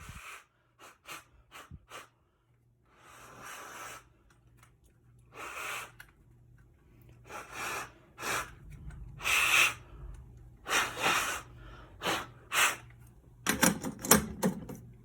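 Repeated puffs of blown air clearing test smoke out of a smoke detector. The puffs come every second or two, then faster and loudest near the end.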